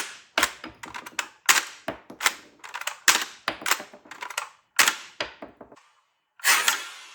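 Sharp plastic clacks from a 3D-printed toy AKS-74U's blowback mechanism being worked, repeated unevenly about twice a second with a short gap near the end.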